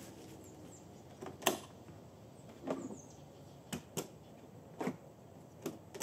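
Airstream trailer door being shut and its rebuilt KT door lock latched and worked by the handle: about half a dozen sharp clicks and clunks, the loudest about one and a half seconds in. The lock is latching and working.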